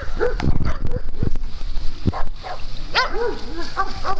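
Dogs barking in short barks, the clearest pair about three seconds in, with a few low thumps earlier on.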